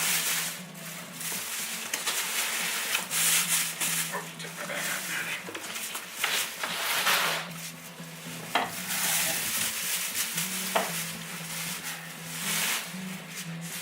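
Irregular rustling and scraping of cardboard and plastic packaging as a portable generator is lifted out of its box. A low droning tone that steps up and down in pitch runs underneath.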